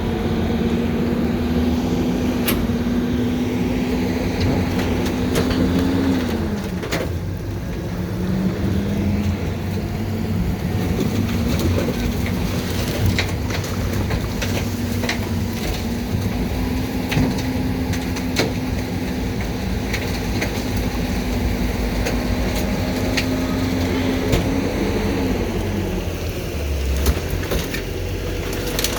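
Heil refuse truck's engine held at raised speed while the packer runs. It drops back toward idle about six seconds in, rises again, holds, and drops once more near the end. Scattered knocks and clatter sound over it.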